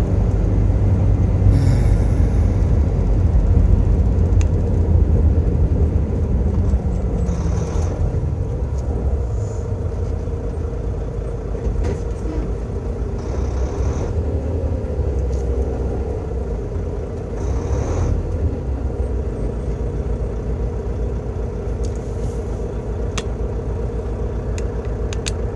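Road and engine noise of a moving car heard from inside the cabin: a steady low rumble with a faint steady hum, easing a little after the first several seconds, with a few brief hisses over it.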